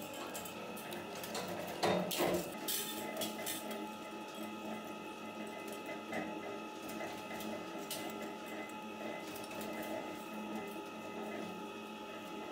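Small stamped metal filter parts clinking and clattering as they are handled, with a few sharper metallic clicks about two seconds in, over a steady machinery hum.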